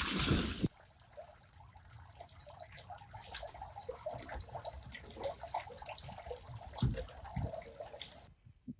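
Water sloshing briefly, then light dripping and trickling with many small irregular ticks. It cuts off suddenly near the end.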